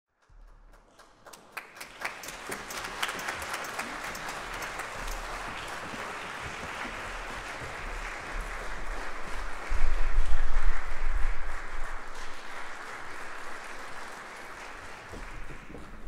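Concert audience applauding: many hands clapping, building up over the first few seconds and loudest about ten seconds in, with a low rumble underneath, then thinning out near the end.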